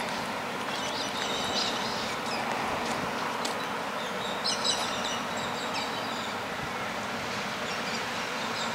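Steady low rumble of Australind diesel railcars creeping slowly into a siding, with short bird chirps about a second in and again around four and a half seconds in.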